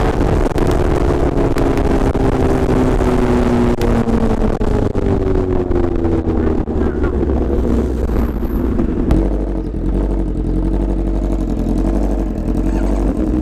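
Motorcycle engine heard from on board at road speed, with wind rushing over the microphone; about halfway through the engine note falls as the bike slows. Near the end, a steadier, lower engine note at low speed.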